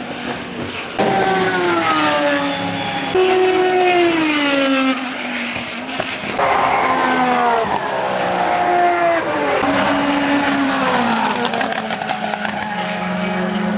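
Several endurance race cars passing close by one after another, each engine note falling in pitch as it goes past.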